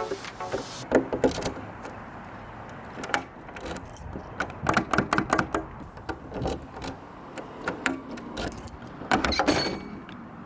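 Irregular clusters of sharp metal clicks and clinks from a truck door lock cylinder and its hardware being fitted into the door by hand.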